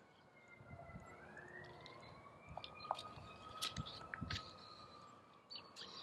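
A faint, distant siren wailing, its pitch sliding slowly down and then back up. A few soft clicks and rustles of a picture-book page being turned come about halfway through.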